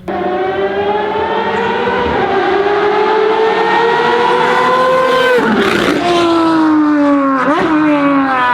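Ferrari FXX Evoluzione's V12 engine accelerating hard on track, pitch climbing through a gear change, then lifting off about five seconds in and dropping in pitch with a quick throttle blip from a downshift near the end.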